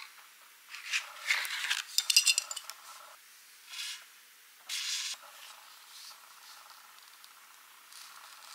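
Metal belt buckle clinking and rattling as a leather belt is handled, with a run of sharp metallic jingles from about one to two and a half seconds in, then two shorter clinks or rustles around four and five seconds.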